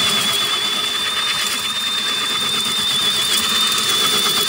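Cordless drill driving a large hole saw into a wooden board: a steady high-pitched motor whine that wavers slightly, over the rapid chatter of the saw teeth cutting. The hole saw's centre pilot bit is bent.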